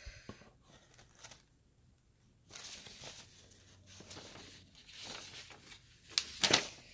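A shipping box being unpacked by hand: paper packaging tearing and crinkling in irregular stretches, with a brief pause in the first half and louder tearing strokes near the end.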